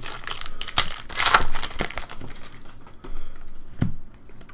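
Trading cards and plastic packaging crinkling and rustling in the hands: an irregular run of crackles, busiest in the first second and a half, then thinning out.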